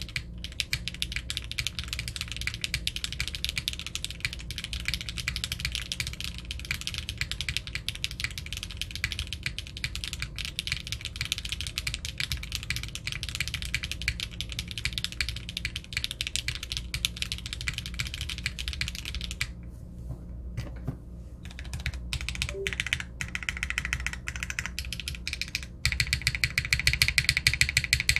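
Fast typing on a Unikorn R2.2 custom mechanical keyboard with a polypropylene plate, O-ring mount, stock HMX Emo switches and GMK keycaps: a dense run of quick keystroke clacks with a rounded tone. The typing thins to a few strokes about twenty seconds in, then picks up again and is loudest in the last two seconds.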